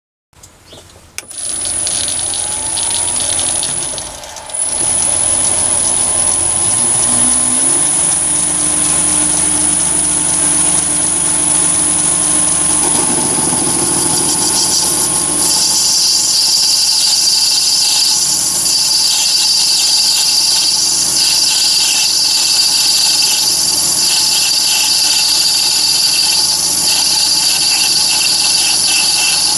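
Chinese mini lathe with a VFD-driven motor starting about a second in, with a high whine and a rising tone as it spins up, then running steadily. From about halfway a turning tool cuts into the brass bar, adding a hissing, rattling cutting noise.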